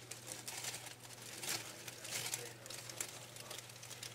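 Dry leaf litter crackling and rustling under a wandering garter snake as it crawls over it, in a run of short crackles with louder rustles about a second and a half and two seconds in.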